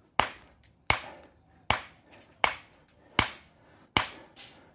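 A small ball-peen hammer striking a quartzite boulder six times at a steady pace, about three-quarters of a second apart. Each blow is a sharp crack with a short ringing tail, chipping small bits off the rock rather than splitting it.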